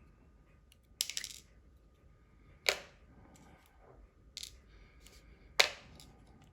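Small metal repair tools clicking and tapping against the phone's tiny metal parts as a small metal cover inside an iPhone 5S is worked loose. Four sharp clicks, the first followed by a brief rattle.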